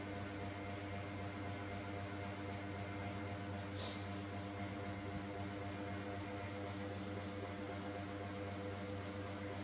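Steady mechanical hum with an even hiss over it, unchanging throughout, with one brief high hiss about four seconds in.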